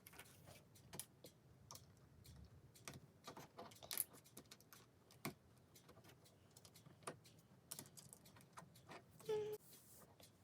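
Faint, irregular clicks and light rattles of small plastic LEGO bricks being handled and pressed together.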